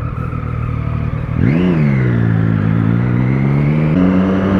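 Motorcycle engine heard from the rider's seat: running steadily, then about a second and a half in the rider opens the throttle and the note rises sharply, eases back and holds steady under acceleration, stepping up a little near the end.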